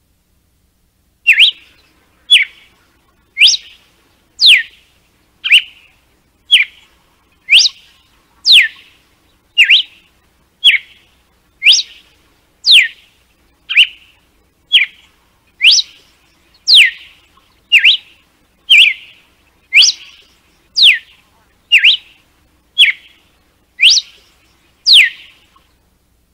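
Red-cowled cardinal (galo-de-campina) giving its 'açoite' (whip) song: a long run of single sharp whistled notes, about one a second, each a quick sweep in pitch, some rising and some falling. The series starts just over a second in and goes on steadily, about two dozen notes in all.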